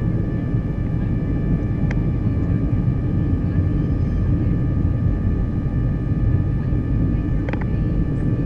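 Inside the cabin of a Boeing 737-300 on descent: steady rumble of airflow and the CFM56-3 engines, with a few steady whining tones over it. Two brief clicks, about two seconds in and near the end.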